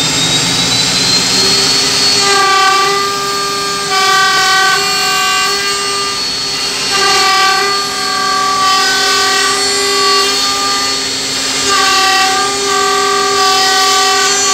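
CNC tenoning machine's router spindle whining as it spins up, then cutting a tenon on the end of a wooden rail in three passes. Each pass is a steady high-pitched whine of about three seconds over the machine's running noise.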